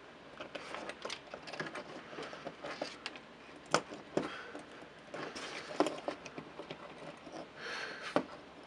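Hands handling a small plastic gimbal assembly and its servo wires and zip ties: light rustling and scattered small clicks, with a few sharper plastic clicks about four, six and eight seconds in.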